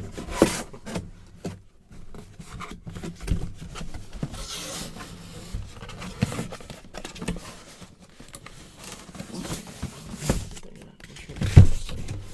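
Cardboard boxes and packaging being handled, with scattered knocks, rustling and a heavy thump near the end.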